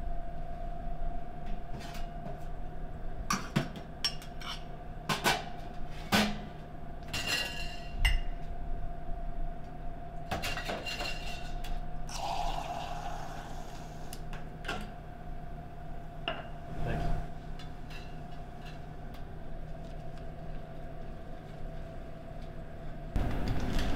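Glasses and bar tools clinking and knocking as a drink is mixed and poured at a bar counter, with a short pour about halfway through, over a steady low hum. A louder low rumble sets in just before the end.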